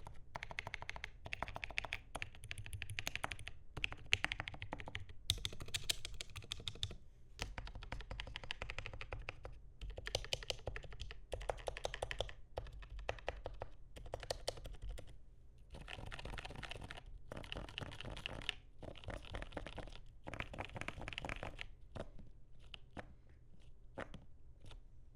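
Typing on the Magic75's 3D-printed mechanical keyboard attachment, whose spring-loaded switches press onto its touchscreen. The keys clatter in bursts of rapid keystrokes with short pauses between, ending with a few single keystrokes.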